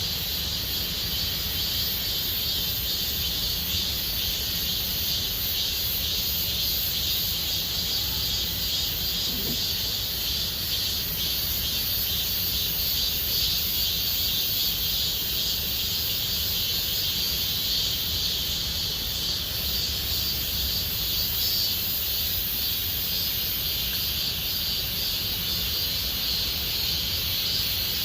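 Chorus of cicadas buzzing in a steady, unbroken drone, with a low rumble underneath.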